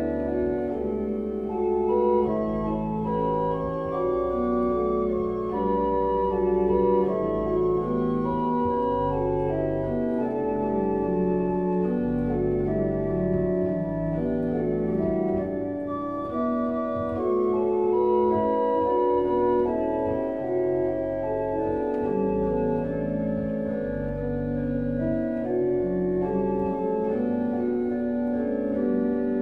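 Organ music: slow, sustained chords over held bass notes.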